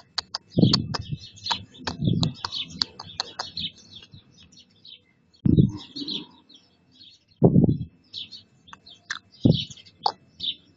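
Small birds chirping rapidly and almost without pause, short high notes close together. Several dull low thumps, about five, cut in and are louder than the chirping.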